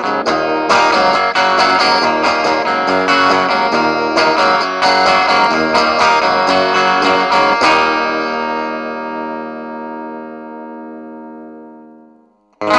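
Squier Sonic Mustang HH electric guitar being played: quick picked and strummed notes and chords, then a final chord left to ring out, fading away over about five seconds, before playing starts again at the very end.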